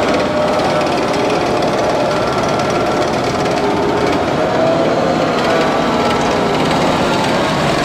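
M270 MLRS tracked rocket launchers driving past at close range: loud, rapid clattering of steel tracks over the road over a running diesel engine, with faint wavering whines.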